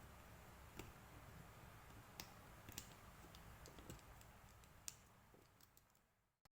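Faint, scattered small clicks and light taps over a low hum, fading out near the end.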